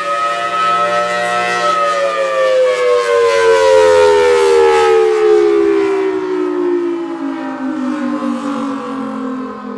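Federal Signal Thunderbolt 1003A outdoor warning siren sounding its two chords from the 5/6-port rotor. It peaks in pitch about a second and a half in, then glides steadily down and fades as it winds down at the end of its 3-minute attack signal.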